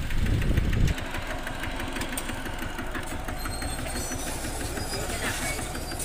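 Diesel engines of a crawler bulldozer and a dump truck running, with a loud low rumble for about the first second, then a steady run with light rattling ticks.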